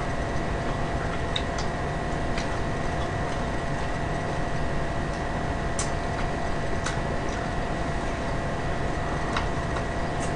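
A steady background hum with two thin constant tones, broken by a few sharp clicks and crunches from eating fried chicken with chopsticks.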